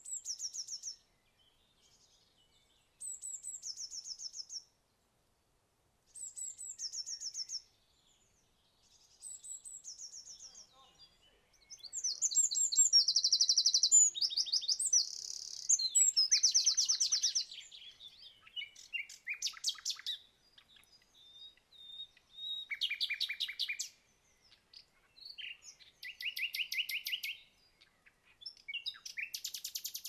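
A blue tit singing short phrases about every three seconds, each a thin high note dropping into a quick trill. About twelve seconds in a wren bursts into its loud, rapid trilling song for some five seconds, the loudest sound here, and shorter trills follow.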